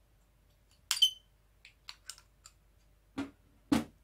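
Small metal parts of a VCR head-drum motor being handled: a sharp metallic click with a brief ring about a second in as the magnetic rotor comes off the stator, a few light ticks, then two dull knocks near the end.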